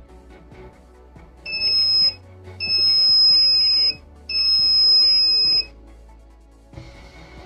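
An electronic buzzer gives three high-pitched beeps, the first short and the next two longer, about a second apart, over background music.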